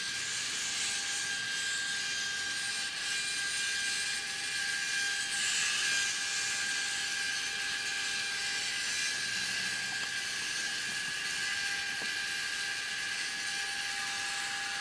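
Kollsman true airspeed indicator's AC servo motor and gear train running on the bench, a steady whine over a hiss as it drives the drum counter, growing louder and brighter about five seconds in.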